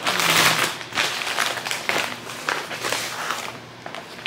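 Packaging crinkling and rustling as a package is unwrapped by hand. A dense crackle comes in the first second, then scattered crinkles that quieten near the end.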